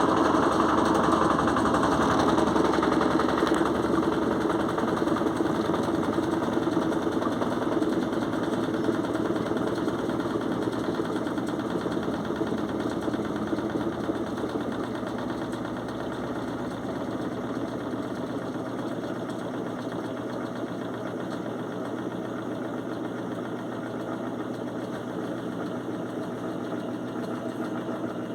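Electrolux washing machine in its spin cycle with a heavy duvet load, a steady whirring and rumbling drone that grows gradually quieter. The noise is loud enough to startle the owner, who takes it to be normal for the machine.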